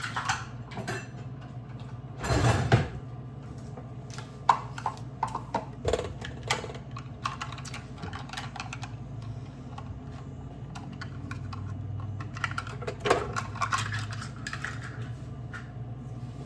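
Scattered light clicks, taps and clatter of kitchen utensils and containers being handled on a counter, louder about two seconds in and again near the end, over a steady low hum.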